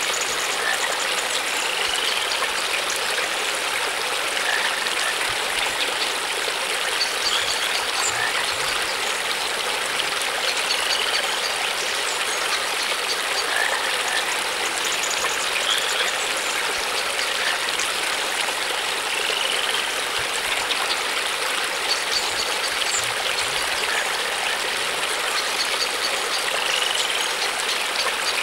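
Steady running water, with short high chirps every few seconds.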